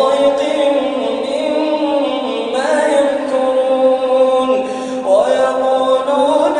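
Male voice reciting the Quran in slow melodic tajweed chant, holding long notes that slide up and down in pitch.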